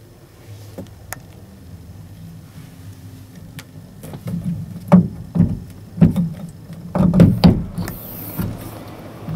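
Roof hatch of a MAN CLA truck cab being pushed open by hand: a run of dull knocks and thumps, several in about four seconds, starting around four seconds in.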